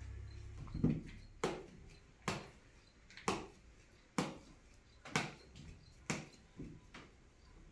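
A steady series of about nine sharp knocks, roughly one a second, from a kitchen utensil striking food or a hard surface during food preparation.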